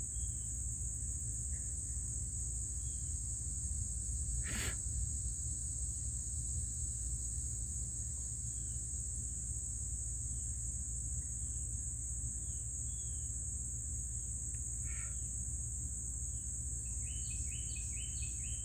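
Outdoor evening ambience: a steady high-pitched insect chorus trilling without a break, with scattered short bird chirps and a quick run of chirps near the end. One sharp click about four and a half seconds in, over a low steady rumble.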